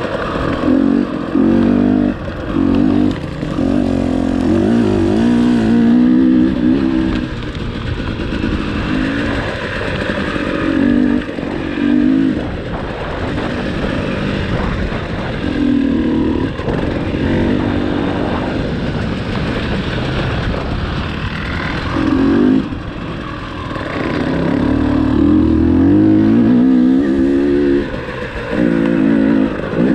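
Single-cylinder two-stroke engine of a 2018 KTM 300 TPI dirt bike, revving up and dropping back again and again as the throttle is opened and shut while riding.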